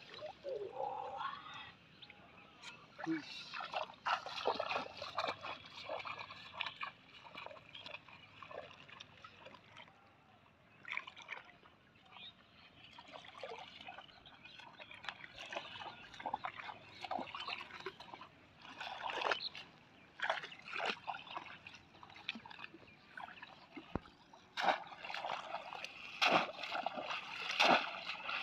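Shallow water splashing and sloshing as a person wades through a flooded field and thrusts a bamboo polo fish trap down into the water. The splashes are irregular and come thicker and louder near the end, as the trap is plunged repeatedly.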